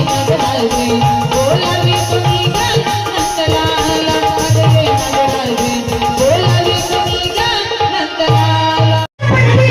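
Indian devotional folk music: tabla-style drum strokes under sustained melodic instrument tones. The sound cuts out briefly near the end.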